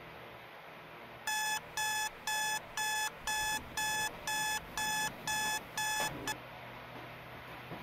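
Electronic wake-up alarm beeping, about two beeps a second, ten in a row, then cut off abruptly in the middle of the next beep as it is switched off. A rustle of bedding comes as it stops.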